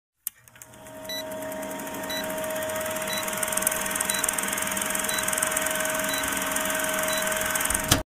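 Old film-countdown sound effect: the whirr and crackle of a film projector over a steady hum, with a short high beep once a second, seven in all. It swells in over the first couple of seconds and cuts off suddenly near the end.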